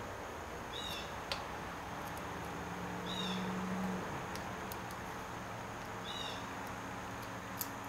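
Light metal clicks of a steel pick working a small E-clip off the governor shaft of a 42RH/A500 automatic transmission, two sharp ones, about a second in and near the end. A short high chirp repeats about every three seconds underneath.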